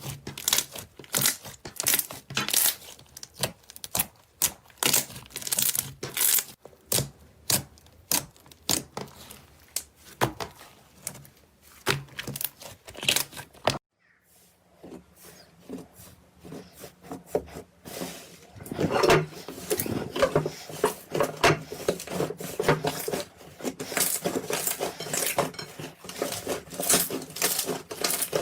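Slime being squeezed and stretched by hand, making irregular crackling and popping clicks. It drops out briefly about halfway through, then comes back denser and louder.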